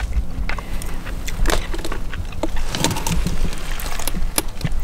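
A low, steady motor hum, with scattered light clicks and taps over it.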